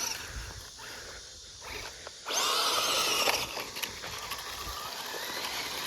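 Electric motor of a 1/16 scale Traxxas Slash RC truck whining as it drives on loose dirt, with tyres scrabbling. It is quiet at first, then loud for about a second a little before the middle, then settles to a steadier run.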